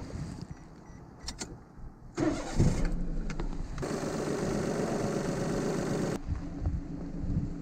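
Daihatsu Move L150S's three-cylinder engine being started: a couple of clicks, then the engine is cranked and catches about two seconds in and runs on.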